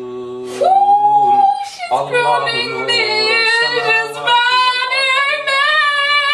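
Voices chanting in long, wavering sung notes: a lower man's voice at first, then a high voice that holds one long note about a second in and goes on with long held, wavering notes, the lower voice joining under it now and then.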